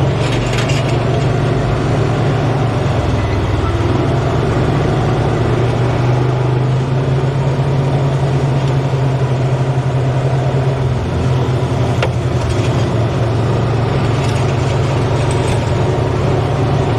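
Peterbilt truck's diesel engine running steadily with a low, even drone.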